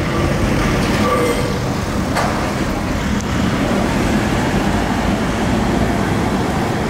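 Steady low rumble of an old yellow Lisbon tram approaching along its street rails, mixed with street traffic noise, with a single sharp click about two seconds in.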